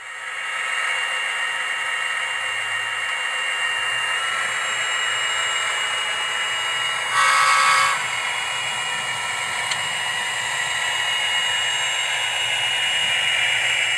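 Sound decoder in an HO-scale Athearn SD40-2 model locomotive playing a diesel engine sound through small speakers as the model runs, steady throughout. About seven seconds in the horn sounds once, briefly and louder.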